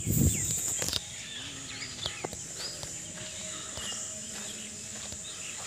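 Steady high-pitched drone of insects, with scattered short bird chirps over it.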